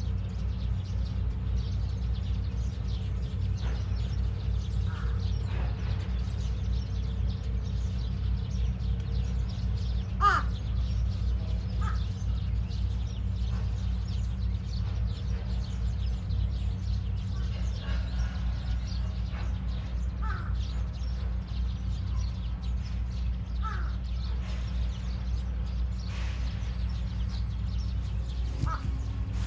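Crows cawing now and then in short separate calls, the loudest about ten seconds in, over a steady low rumble.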